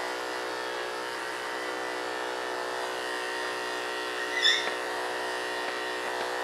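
Heavy commercial-grade electric dog clippers running with a steady hum as they buzz a Chinese Crested puppy's coat short. There is a short high squeak about four and a half seconds in.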